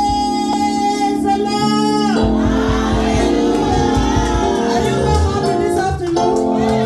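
Music with singing: a long held note stops about two seconds in, and the music carries on over a steady low accompaniment, with new held notes coming in near the end.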